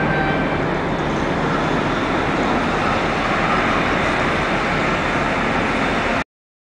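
Steady rushing noise with a faint low hum, as heard on board a container ship. It cuts off suddenly about six seconds in.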